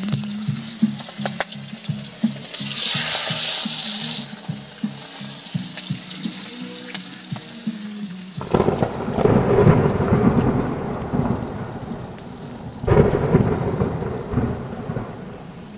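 Music with a low, pulsing beat, then two long rolls of thunder, the first about halfway through and the second near the end of the first rumble's fade.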